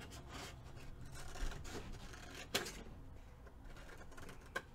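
Scissors cutting paper, with paper handling between the cuts: a few scattered crisp snips, the sharpest about halfway through.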